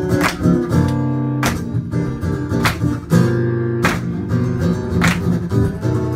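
Acoustic guitar strummed in an instrumental passage with no singing. There is a sharp strum stroke about every second and a bit, and the chords ring between the strokes.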